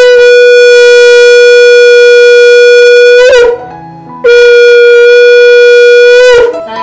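A conch shell (shankha) is blown loudly in two long, steady blasts, the first about three seconds and the second about two, with a short gap between them. Each blast ends with a quick upward slide in pitch.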